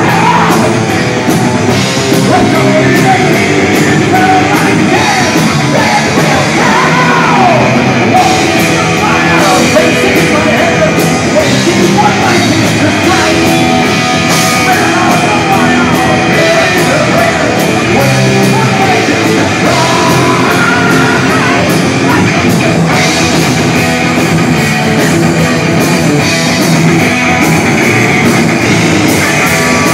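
Live heavy metal band playing loud, with distorted electric guitars, bass and drums under a singer's voice that glides up and down.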